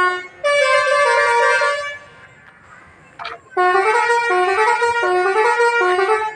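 A bus telolet horn, a bus's multi-tone horn, playing a quick stepping melody in two phrases with a pause of about a second and a half between them.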